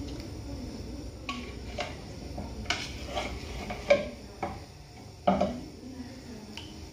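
A metal spoon clinking against a glass bowl and a clay tajine while sliced onions and tomatoes are scooped out, about eight separate clinks; the two loudest come about four and five and a half seconds in.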